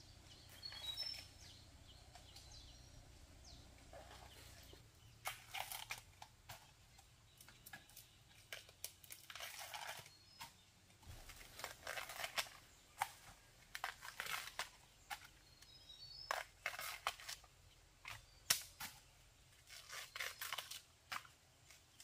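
Irregular crackling and tearing of dry plant material being handled by hand, in short clusters.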